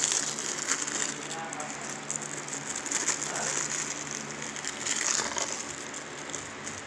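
Clear plastic wrapping crinkling and crackling as it is peeled and torn off a DVD case by hand, with scattered small clicks of the case being handled.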